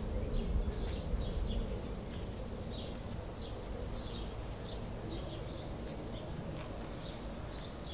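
Small birds chirping, short high chirps repeating irregularly every half second or so, over a steady low rumble.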